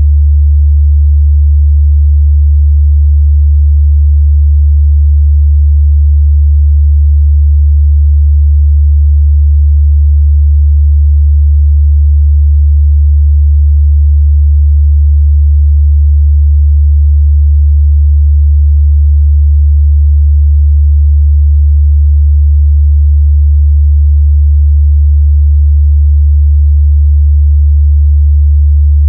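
Steady, loud 73 Hz sine-wave test tone: a single low bass hum that holds one pitch without a break.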